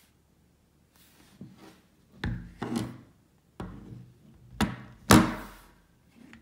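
H&K P7 M13 steel pistol knocked and slid on a wooden tabletop as it is turned over by hand: a handful of sharp knocks with short scrapes, the loudest about five seconds in.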